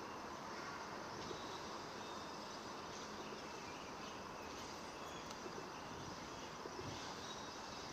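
Steady outdoor background of insects chirring, with a few faint high chirps scattered through it and no distinct event.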